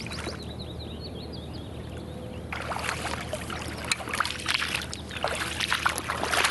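Rubber chest waders wading through shallow floodwater: sloshing and splashing steps that start about two and a half seconds in and get louder. Before that, high repeated chirps of a small bird.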